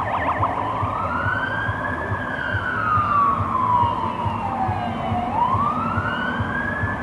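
Fire engine siren on an emergency run, in a slow wail: it rises, falls over about three seconds, and rises again, after a brief fast warble at the start. Under it is a low vehicle rumble.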